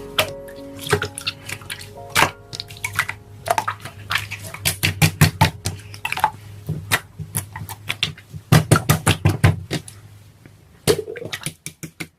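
Many quick, irregular taps and clicks with a low hum under them, thinning out near the end; background music fades out at the very start.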